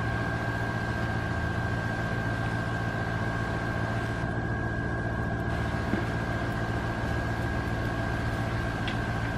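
A steady motor or appliance hum with a constant high-pitched whine over it, unchanging throughout, and one faint tick about six seconds in.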